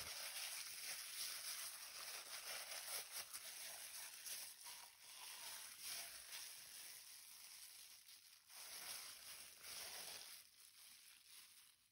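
Faint crinkling and rustling of a plastic bag of chicken pieces being squeezed by gloved hands, dying away near the end.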